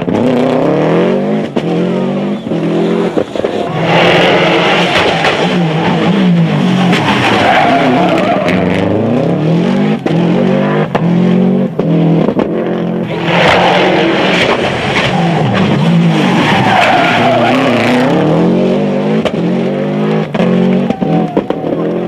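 Subaru Impreza rally car's turbocharged flat-four engine driven flat out. The revs climb and drop repeatedly through gear changes and corners, with short sharp cracks in between and tyres skidding on the road surface.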